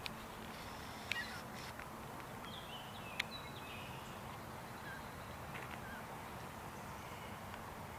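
Black-capped chickadees giving short, high calls, scattered notes that step down in pitch, over a steady low background hum. Two sharp clicks stand out, about one and three seconds in.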